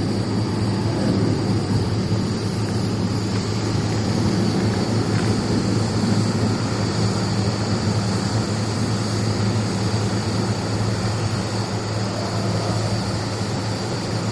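A steady, low mechanical drone, like a motor or engine running without change.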